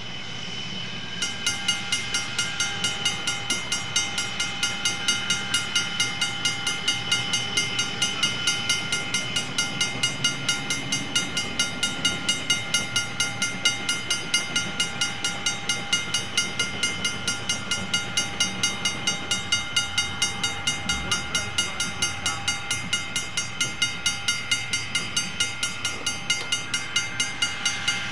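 A railroad bell ringing steadily, about three strikes a second, starting suddenly about a second in.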